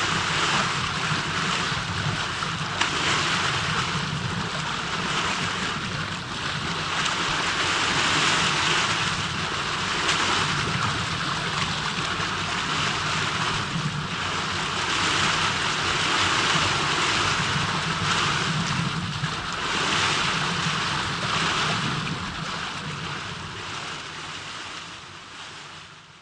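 Rushing water with swells every couple of seconds, fading out near the end.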